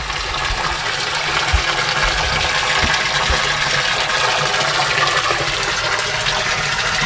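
Steady stream of water from an inlet pipe pouring and splashing into a plastic fish tank.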